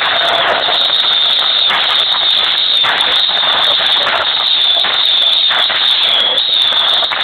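Fireworks going off from a truck in a continuous barrage: a dense, unbroken crackling and hissing, loud and steady.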